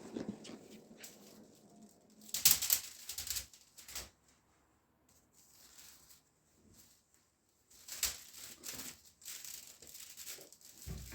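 Rustling and crinkling handling sounds in two clusters of short bursts, the first a little over two seconds in and the second near the end, with a quiet stretch between.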